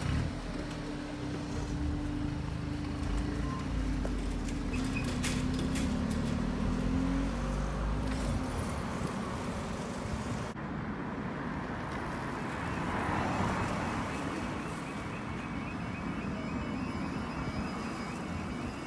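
Cars pulling away over a level crossing as the barriers lift: engines and tyre noise on a wet road, loudest in the first several seconds. Near the end a faint, evenly repeating warbling tone starts, the crossing's yodel alarm sounding for the next closure.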